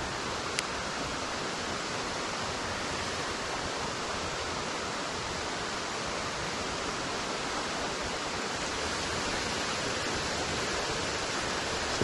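Steady rushing of a waterfall pouring into a creek pool, an even hiss with no change, with one sharp click about half a second in.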